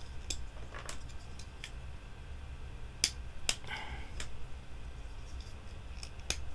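Hard plastic pieces of a Deluxe Astro Megazord toy clicking and knocking together as they are handled and fitted, a few sharp clicks spread out, two close together about three seconds in, over a low steady hum.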